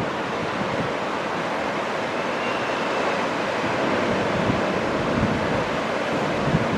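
Ocean surf breaking and washing steadily, with wind buffeting the microphone.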